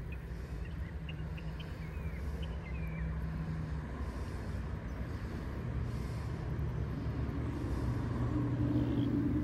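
Low engine drone that grows steadily louder, its pitch shifting a few times, with a few faint bird chirps over it.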